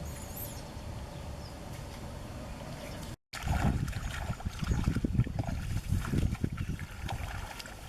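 Water sloshing and splashing as hands work through muddy water: a steady low churning at first, then, after a brief cut, louder irregular splashes and knocks.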